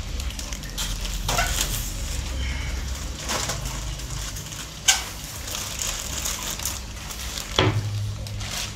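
Hands working at the open top of a large fish tank: scattered sharp knocks and rustles, the loudest about five seconds in, over a steady low hum.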